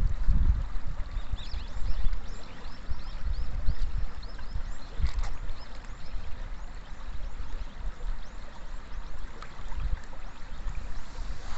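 River water flowing and lapping at a stone bank, with an uneven low rumble and a scatter of short, high, falling chirps above it.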